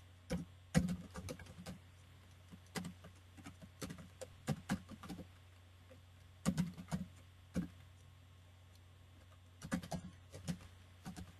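Typing on a computer keyboard: irregular key clicks in short bursts with pauses between them.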